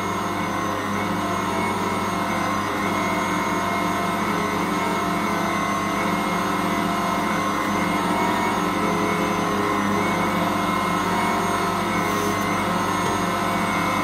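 Ankarsrum 6230 stand mixer running steadily while it kneads bread dough: a constant motor hum that holds one speed.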